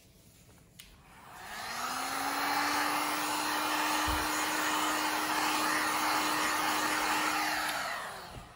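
Handheld heat gun switched on, its fan and heating element blowing with a steady hiss and hum, held over a wet epoxy resin pour. It winds up about a second in, runs steadily for about six seconds, then winds down near the end.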